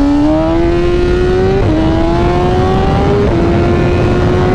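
2023 BMW M1000RR's inline-four engine with a full titanium exhaust (Akrapovic headers, SC Project slip-on) pulling under acceleration, its pitch climbing steadily and dropping sharply twice as it shifts up a gear.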